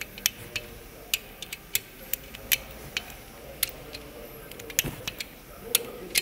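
Torque wrench clicking: a string of sharp, uneven clicks, roughly two a second, as the crankshaft bedplate bolts of a Kia G4NA engine block are tightened to the second stage, 35 N·m.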